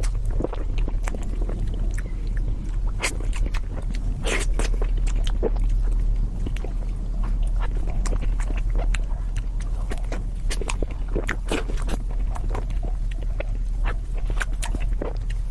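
Close-miked eating sounds of a person chewing cake: irregular wet mouth clicks and smacks, over a steady low hum.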